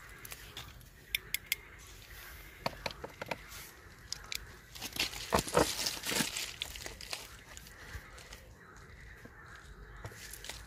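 Light clicks and scraping of a screwdriver turning a Phillips screw into the plastic body panel of a Honda Dio scooter, with a louder crunching rustle about five to six seconds in.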